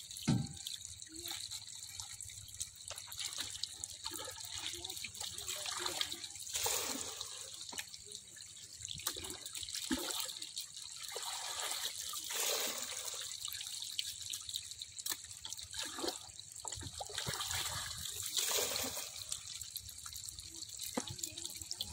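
Shallow water trickling and splashing through a gap into a woven basket, thick with small puti fish that flip and splash as they are carried in. A single sharp knock right at the start.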